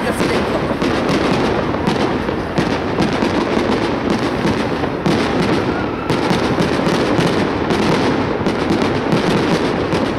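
Fireworks display going off continuously: a dense run of pops, bangs and crackling from aerial bursts with no pause.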